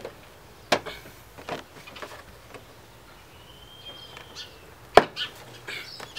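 A few sharp clicks and knocks from hand-fitting quick release bumper fastener hardware, the loudest about five seconds in.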